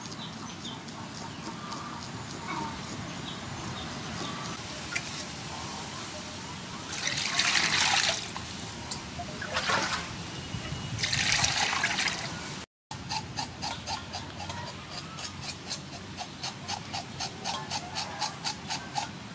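Sea fish being cleaned: faint snips and clicks of scissors trimming the fish, then water splashing in a metal basin twice as the fish are washed. After a sudden break, a kitchen knife scrapes the scales off a fish in quick, regular strokes, several a second.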